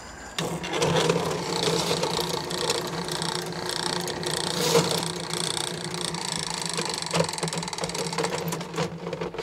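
Motorized sewer drain-cleaning machine running steadily with a constant hum and some rattling as it works to clear a clogged sewer main. It starts about half a second in.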